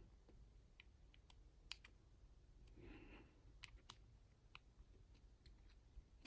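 Faint, irregular small metallic clicks and ticks from a US Star dimple lock being gutted, as its plug is pushed out of the cylinder with a plug follower.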